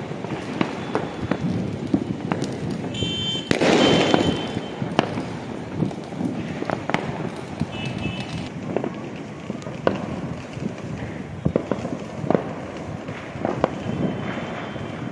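Diwali fireworks and firecrackers going off across the city: scattered bangs and pops throughout, with a louder spell of crackling about four seconds in.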